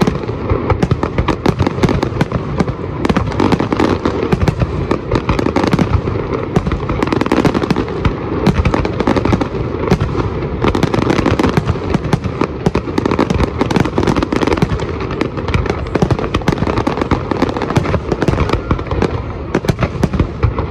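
Fireworks display: many shells and ground effects going off in a dense, unbroken barrage of bangs and crackling, with no pause.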